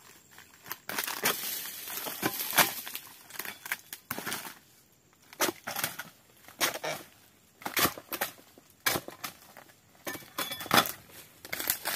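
Oil palm fronds being hacked and cut with a long-handled pole blade: irregular sharp chops and snaps, with the rustle and crackle of dry fronds between them.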